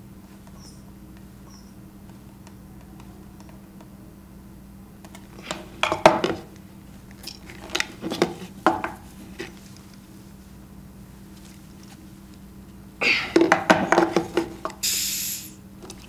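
Hard plastic vacuum hemispheres and their fittings being handled: scattered clicks and knocks, then a dense clatter near the end, followed by a short sharp hiss as air rushes back in and the seal of the evacuated hemispheres is broken. A faint steady hum runs underneath.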